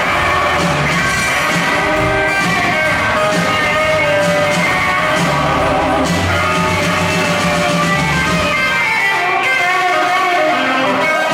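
Live rockabilly band playing an instrumental passage: a lead electric guitar line over upright bass and drums, loud and steady, with a run of notes falling in pitch near the end.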